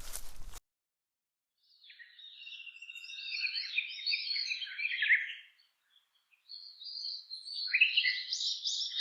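A songbird singing two long phrases of rapid, warbling, chirpy notes, the first starting about two seconds in and the second about six and a half seconds in, with a short silence between. A brief noisy clip cuts off half a second in, before the singing.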